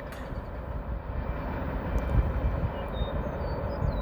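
Steady low rumble of a freight grain train rolling along the track.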